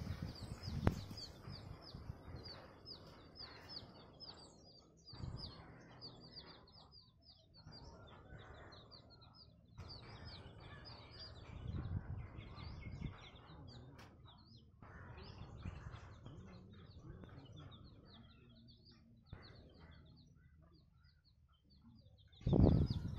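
A flock of baby chicks peeping continuously, many short high cheeps overlapping one after another. A loud low bump comes near the end.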